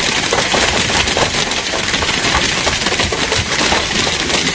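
Heavy hailstorm: hailstones pelting down in a dense, rapid clatter of impacts over a steady rushing noise.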